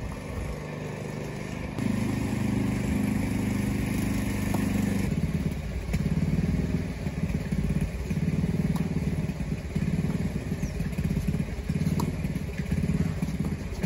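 An engine running steadily with a pulsing hum. A few faint tennis-ball strikes off racquets, one near the end.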